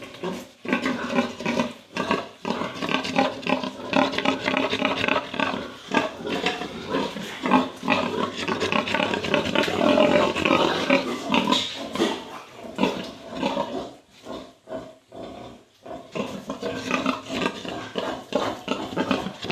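Several pigs squealing and grunting over one another in their pens, with a short lull about two-thirds of the way through before the squealing picks up again.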